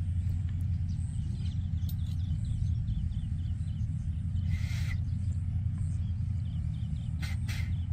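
Outdoor ambience: a steady low rumble with faint, quickly repeated bird calls, a brief burst of noise about halfway through and two short clicks near the end.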